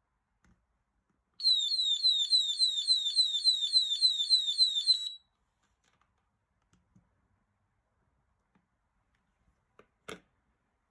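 HeyShow PSD107 anti-theft display stand's built-in security alarm going off: a high-pitched falling electronic tone repeating about four times a second for almost four seconds, then cut off abruptly. A single short click follows near the end.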